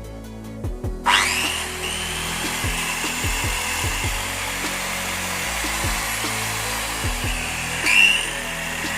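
Maktec MT-583 electric circular saw switched on about a second in, its motor whining up to speed and then running steadily, with a brief louder surge near the end. Background music plays throughout.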